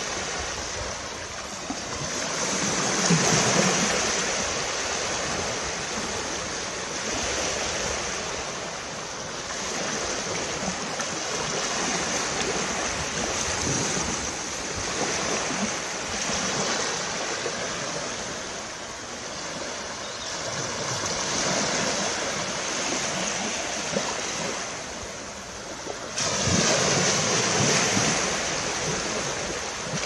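Small waves breaking and washing up a sandy beach, the surf swelling and fading every few seconds, with a louder wash coming in abruptly near the end.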